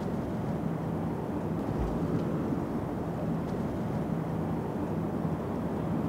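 Steady low rumble of outdoor city background noise, with a faint steady hum running through it.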